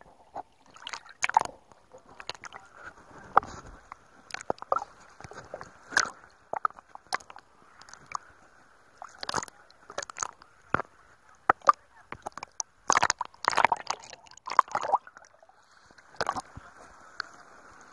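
Seawater sloshing and splashing close by, with many irregular sharp splats and slaps over a faint steady wash.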